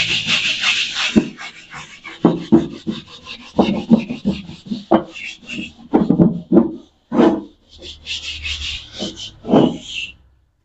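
Steel wool scrubbing the soapy underside of a thin drum-steel wok to take off rust and grime: a quick, irregular run of rough rasping strokes, with tap water splashing. The scrubbing pauses briefly near the end.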